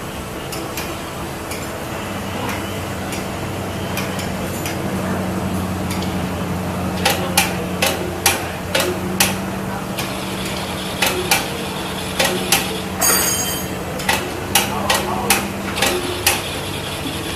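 Tools knocking and clanking on metal during tank maintenance work: a run of sharp knocks, a few a second in clusters, starting about seven seconds in, over a steady low hum.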